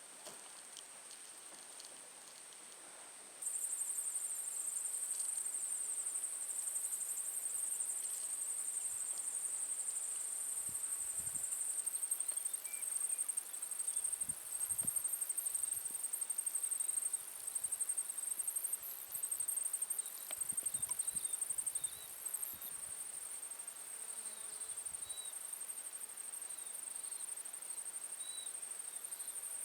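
Insects chirring in a steady, high-pitched pulsing drone that starts abruptly about three seconds in.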